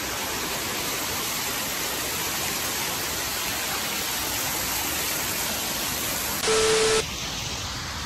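Steady hiss of water spray from a misting fountain. About six and a half seconds in, a brief louder blast with a steady tone cuts in for half a second.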